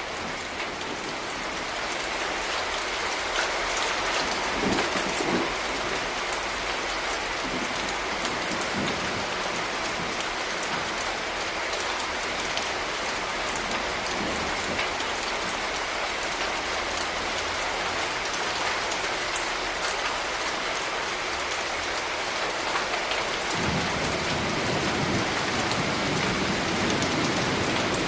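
Steady rain falling, a dense even hiss of drops. A low rumble comes in about three-quarters of the way through.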